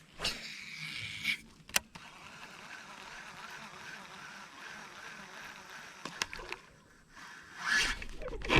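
Handling noises aboard a fishing kayak: a few sharp knocks in the first two seconds and another about six seconds in, over a faint rustle, then a louder rush of noise near the end.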